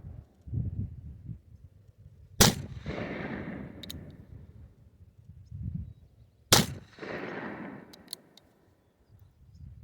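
Two shots from a .44 caliber Remington New Model Army black powder revolver firing paper cartridges of 30 grains of FFFg powder, about four seconds apart, each followed by a long fading echo. Faint light clicks come after each shot.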